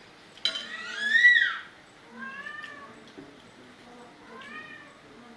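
Cat meowing three times, each call rising and then falling in pitch; the first meow is the longest and loudest.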